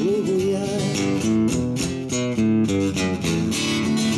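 Acoustic guitar playing a short instrumental passage of plucked and strummed chords between sung lines, with a clear, even rhythm of struck notes.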